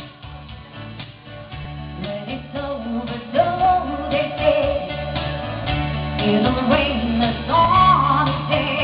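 Rock song performed live: a singer's voice over band accompaniment with a steady bass line, the vocal growing strong about three seconds in.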